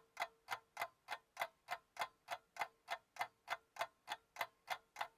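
Steady clock-like ticking, about three ticks a second, with a faint steady tone underneath.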